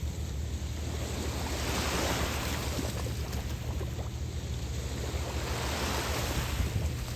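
Small waves breaking and washing onto a beach, with two surges of surf swelling and fading a few seconds apart. A steady low rumble of wind on the microphone runs underneath.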